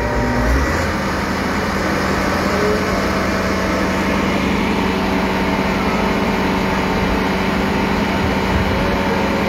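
Diesel engine of a railway breakdown crane running steadily at close range, a constant low hum.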